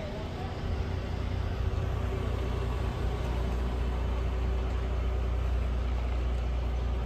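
Heavy diesel truck engine running steadily: a low, even drone with a faint steady tone above it.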